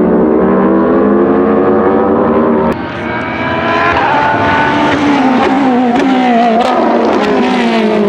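Wolf GB08 prototype racing cars with Aprilia V4 engines running under acceleration, their engine note rising steadily. After a cut a little under three seconds in, a GT racing car passes at speed, its engine pitch rising and dropping through gear changes, with a few sharp pops in the later part.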